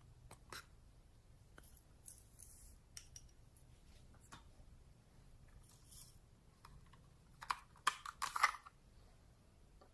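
Slime being handled, giving faint scattered sticky clicks and crackles, with a cluster of louder crackles about eight seconds in.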